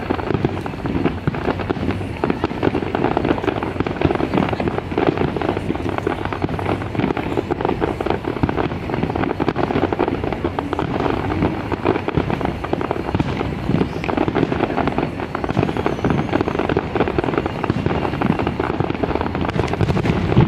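Fireworks display: a dense, continuous barrage of firework bursts and crackling, with shots packed closely together and no pauses.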